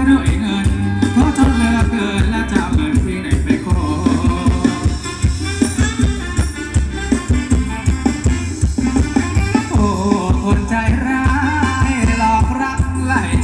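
Thai ramwong dance music from a live band played loud through a PA system: a steady, quick beat with a heavy bass drum and melody on top.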